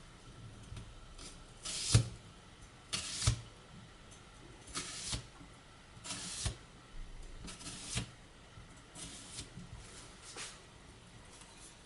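Bunka kitchen knife slicing through an onion in slow, separate strokes, about seven of them, one every second and a half or so: each a crisp slicing crunch, several ending in a light knock of the blade on the cutting board.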